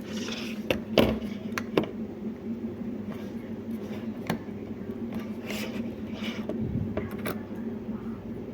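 Scattered sharp clicks and a few short scraping rustles of small hard objects being handled, over a steady low hum.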